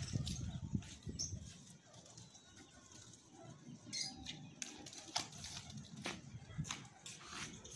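Domestic pigeons flying off a rooftop, their wings flapping in scattered short flutters. A low rumble comes in the first second.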